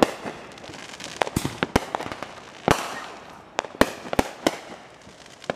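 Aerial fireworks going off in an irregular run of sharp bangs, about ten in all. The loudest comes about halfway through and is followed by a crackling hiss.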